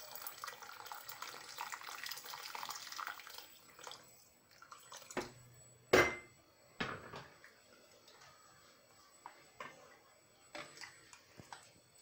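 Water pouring from a glass into a steel pot of simmering lentil broth, a steady splashing that stops about three and a half seconds in. Then a ladle knocks and scrapes in the metal pot a few times, the loudest clank about six seconds in.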